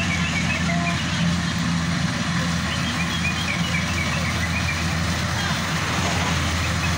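Rice combine harvester running steadily in the paddy field, a constant low engine hum. Short high chirps from birds are scattered over it.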